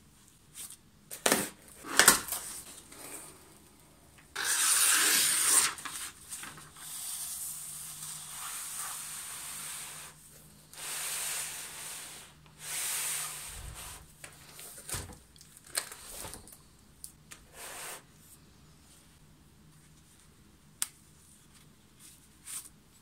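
Packaging being handled and opened: irregular bursts of rustling and tearing, the longest and loudest about five seconds in. Sharp knocks come early on, scattered small clicks follow, and one sharp click comes near the end.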